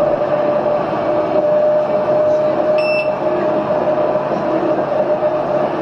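Tram running along its line, with a steady whine under the running noise and one short electronic beep about three seconds in.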